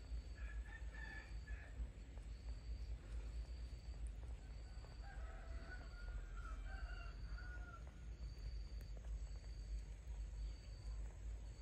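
A rooster crowing twice: a short crow near the start, then a longer crow from about five to eight seconds in. A faint high chirp repeats about once a second behind it.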